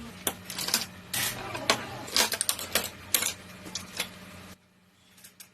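Quick clicks, taps and rattles of computer parts being handled during assembly, over a low steady hum; it stops abruptly about four and a half seconds in.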